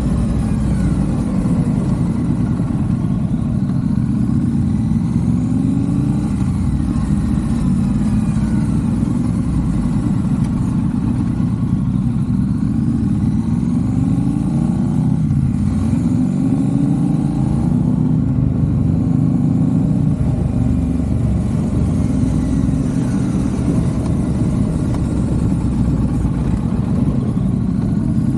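Triumph motorcycle's parallel-twin engine running under way. The engine note climbs in pitch several times as the bike accelerates, dropping back between.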